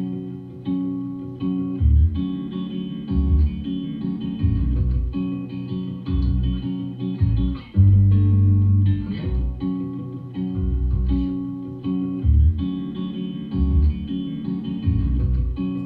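Guitar-led music with deep, recurring bass notes, played back through Bang & Olufsen Beolab 28 active loudspeakers.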